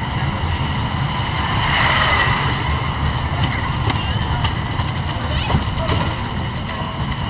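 Tourist road train running along a street, a steady low rumble heard from an open carriage, with passengers' voices talking indistinctly over it and a few short knocks about two-thirds of the way through.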